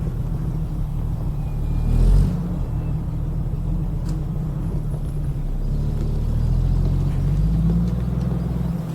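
Engine of a 1960 Soviet truck crane running with a deep, steady rumble. It swells loudly for a moment about two seconds in and rises in pitch toward the end as it revs up.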